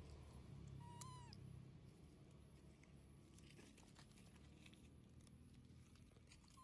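A young long-tailed macaque gives one short, high, meow-like call about a second in, its pitch dropping at the end, and a briefer call near the end. Faint ticks and rustles between the calls.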